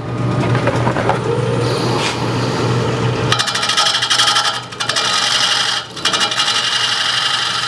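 Wood lathe running with a bowl gouge cutting into a spinning green red oak blank, the cut coming as a rapid repeating rattle as the gouge meets the blank's uneven, not-yet-round surface. The cutting breaks off briefly twice as the tool comes off the wood, over a steady motor hum.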